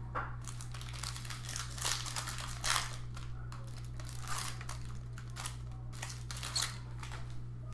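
Foil card-pack wrappers crinkling and trading cards being handled, a run of irregular rustles and crackles with a few louder ones, over a steady low hum.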